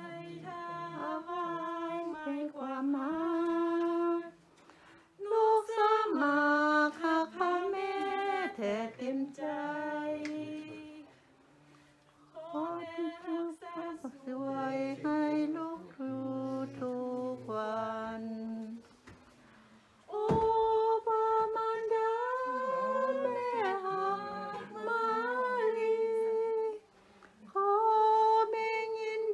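Unaccompanied hymn singing, led by women's voices, in long held notes sung in phrases with short breaks between them.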